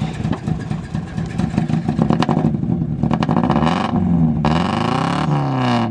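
Lifted NA Mazda Miata's four-cylinder engine running, then revved up and down a few times, its pitch rising and falling. The owner says the two middle cylinders share compression, so it runs weak, on what he calls two cylinders.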